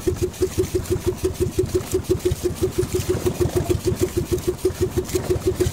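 Small outrigger boat engine running steadily, an even, rapid pulsing of about nine or ten beats a second.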